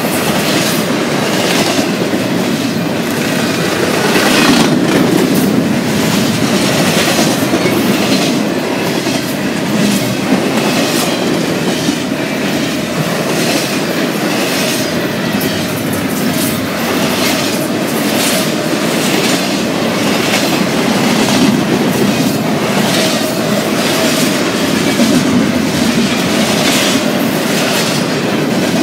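Double-stack container train rolling past close by: a steady rumble of steel wheels on rail, broken by a string of repeated wheel clacks.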